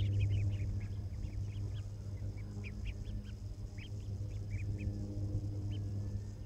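A brood of young mallard ducklings peeping, many short high calls in quick, uneven succession while they feed, over a steady low hum.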